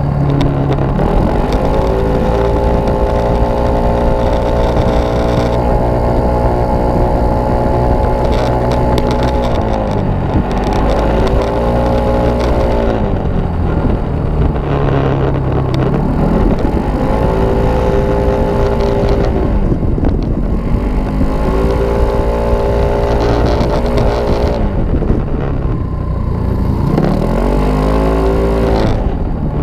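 Kymco Racing S scooter's single-cylinder engine ridden hard on track, with wind and road noise. The revs climb quickly and hold steady at a high pitch, typical of its CVT at full throttle, then fall back and climb again about five times as the throttle is rolled off and reopened.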